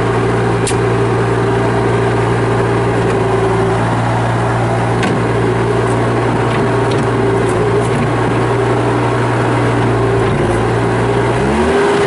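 Kubota turbo diesel engine of a Bobcat T300 tracked skid steer loader running steadily, its revs rising a little before the end.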